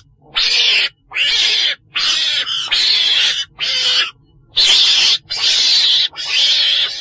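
Recorded calls of the 'chồn đèn', a weasel-like animal, of the kind hunters play back as a lure: about seven harsh, hissing squeals, each half a second to a second long, with short gaps between them.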